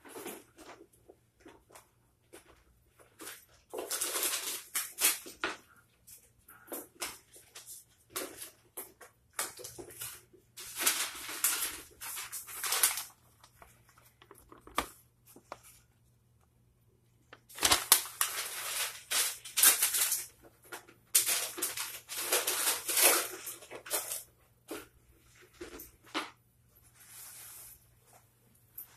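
Paper and clothing rustling as they are handled close to the microphone, in several bursts of a few seconds each with quieter gaps and scattered small knocks between.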